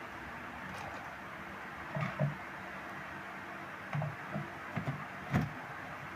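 Light knocks and clicks of tools and parts being handled during the repair of an active speaker's amplifier, about seven, with the loudest near the end, over a steady hiss.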